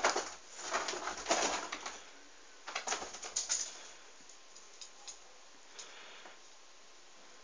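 A kitten scrambling after a laser dot on a wall and a cloth-covered sofa: claws scrabbling and the sofa cover rustling in two flurries, then a few soft ticks.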